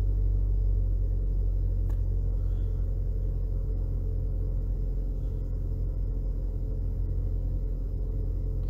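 Opel Zafira's 1.8 Z18XE four-cylinder petrol engine idling steadily just after a cold start, at its raised cold-start idle.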